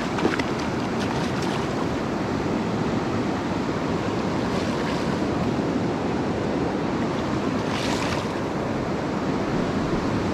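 River water rushing steadily, with a short, brighter burst of water noise about eight seconds in.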